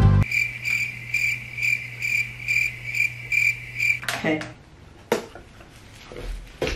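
Cricket chirping in an even pulse, about two chirps a second, stopping suddenly about four seconds in. After that come a few soft rustles and clicks of a paper leaflet being handled.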